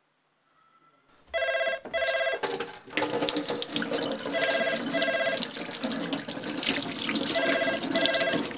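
Telephone ringing in the British double-ring pattern, two short rings repeated about every three seconds and unanswered, over a tap running hard into a sink from about two and a half seconds in. Both stop dead at the end.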